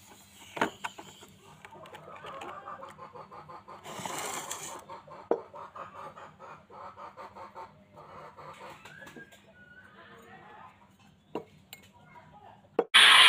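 Wet handling of a metal hoe head in a shallow metal tray of water: sloshing and scrubbing, with a few sharp knocks of the metal against the tray and the wooden block, and clucking in the background.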